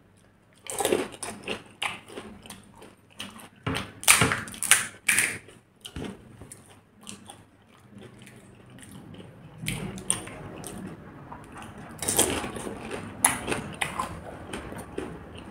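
Crisp fried pani puri shells crunching as they are bitten and chewed, in irregular sharp crunches. The crunching is loudest about four to five seconds in and again around twelve seconds.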